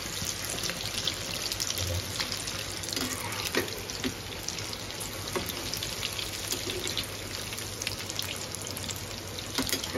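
Chicken pieces in egg, curd and besan batter deep-frying in mustard oil in an iron kadhai: a steady sizzle and crackle of bubbling oil. A slotted steel spoon now and then knocks or scrapes against the pan.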